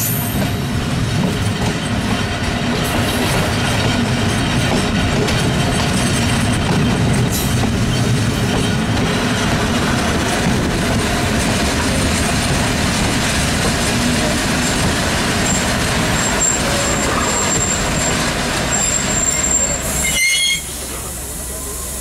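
Passenger train rolling along the track, heard from an open window of one of its own coaches: a steady rumble of wheels and running gear. A thin high squeal comes in over the last few seconds, and the noise drops suddenly to a lower level near the end.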